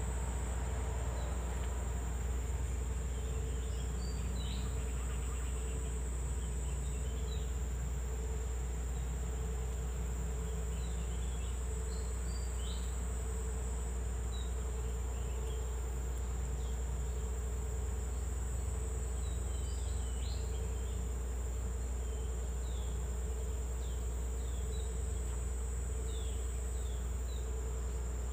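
Steady chorus of forest insects: a continuous high-pitched buzz over a lower droning hum, under a constant low rumble. Brief short chirps come and go throughout.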